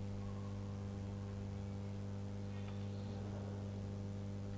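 Steady electrical mains hum: a low, unchanging hum with a stack of evenly spaced overtones.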